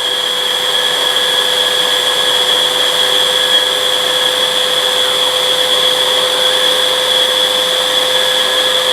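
Hoover React cordless upright vacuum running in FloorSense mode, with its motor and revolving brush roll spinning. It is a steady whine: a low and a high tone held over an even rush of air.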